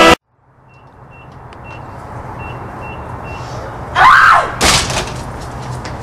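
About half a dozen short electronic beeps, like a vending machine's keypad being pressed, over a low background hum. About four seconds in comes a loud cry that rises and falls in pitch, then a sharp bang and a few knocks.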